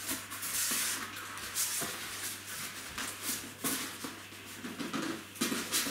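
Rustling and scraping of cardboard and packing material as hands rummage inside an opened box, in several irregular bursts.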